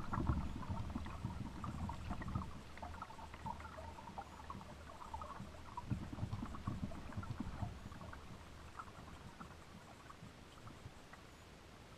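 Small clicks and rustles of a swimbait Alabama rig being handled, over low bumps of water against a kayak hull; the sounds grow quieter toward the end.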